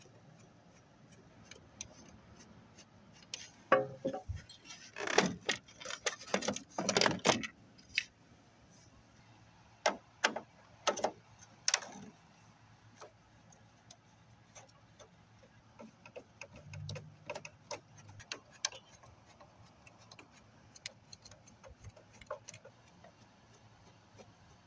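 Hand screwdriver backing screws out of a flat-screen TV's plastic back cover, the tool and loose screws clicking and rattling against the plastic. Louder clattering comes about four to eight seconds in, more clicks around ten to twelve seconds, then scattered light ticks.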